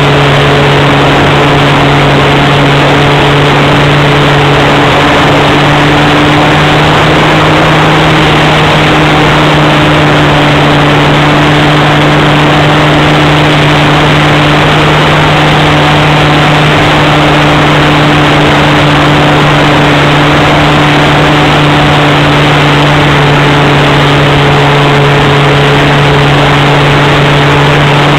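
Two-stroke .46 glow (nitro) engine of a Swift 40 RC plane running steadily at high throttle, heard from a camera on the wing, its drone rising slightly about five seconds in over a loud rushing noise.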